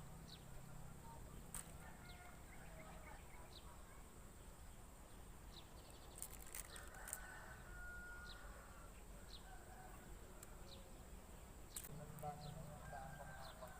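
Faint bird calls: short high chirps about once a second, with longer, lower pitched calls in the middle and near the end.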